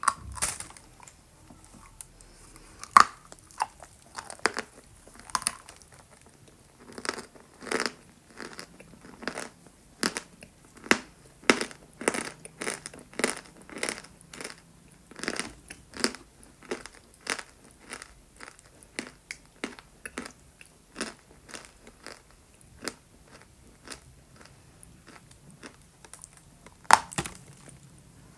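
Close-miked biting and chewing of dried chalk paste made with clay: crisp crunches and crackles, roughly one or two a second, with a few louder bites.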